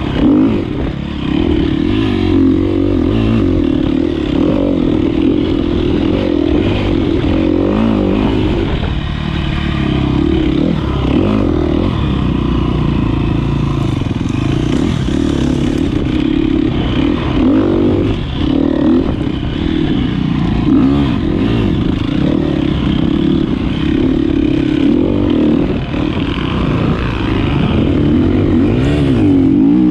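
Single-cylinder four-stroke engine of a 2013 KTM 250 XC-F dirt bike running hard, its revs rising and falling continuously with the throttle, with a few brief knocks.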